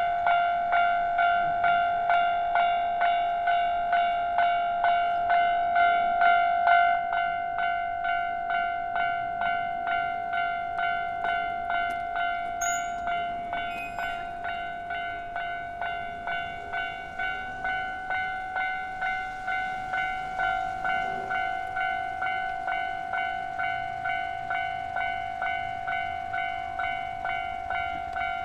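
Japanese railway level crossing's electronic alarm bell ringing steadily, an even, repeated clang at about two to three strikes a second: the warning that a train is approaching or passing. It becomes somewhat quieter about seven seconds in.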